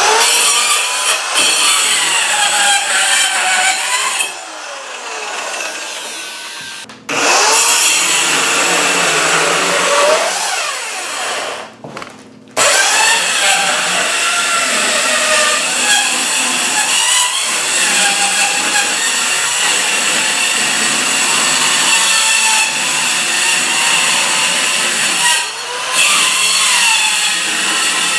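Performax 4-1/2-inch compact circular saw cutting through old wooden flooring and plywood subfloor. It is let off and winds down about four seconds in and again around eleven seconds, starting back up each time, then runs through one long cut.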